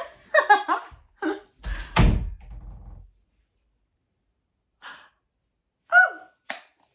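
A woman laughing and exclaiming excitedly in short bursts, with a loud dull thunk about two seconds in and another burst of laughter near the end.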